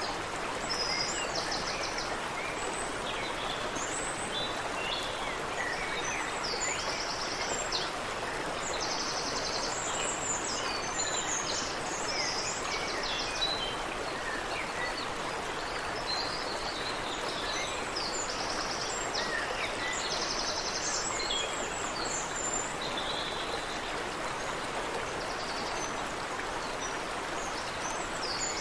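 A stream running over a small waterfall in a steady rush, with several birds singing and calling over it, including a repeated rapid trill.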